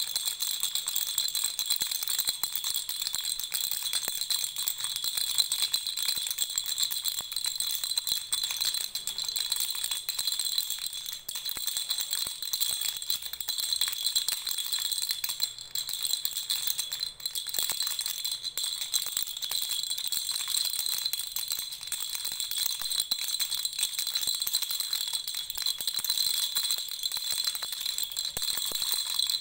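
Baby rattle shaken without pause: a dense, steady, high-pitched rattling.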